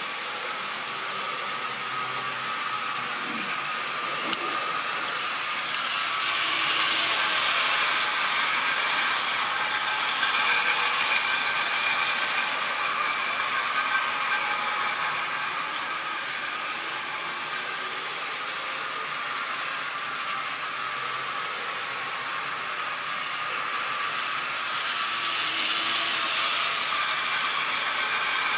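Model railway goods train running round the layout: the steady whirr of the small electric locomotive motor and the rattle of wagon wheels on the track. It gets louder twice, from about six seconds in and again near the end, as the train passes close.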